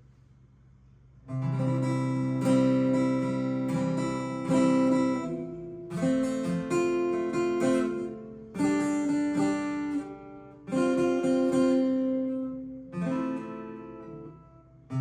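Steel-string acoustic guitar, a 1973 Gibson Hummingbird, strumming an intro: about a second in the chords begin, struck roughly every two seconds and left to ring, changing chord as they go.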